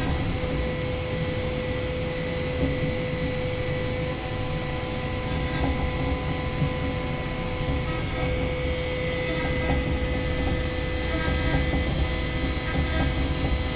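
CNC machine running steadily: a constant whine held on one pitch over an even rushing hum.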